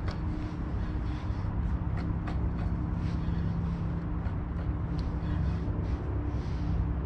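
Steady low engine hum with a few light clicks scattered through.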